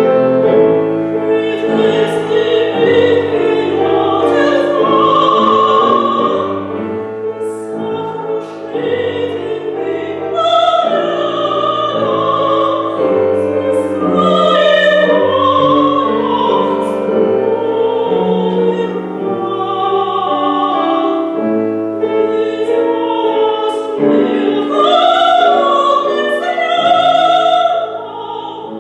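A classically trained solo voice singing a Russian art song with piano accompaniment, with vibrato on the held notes.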